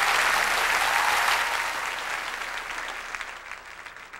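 Audience applauding, loud at first and then dying away over the second half.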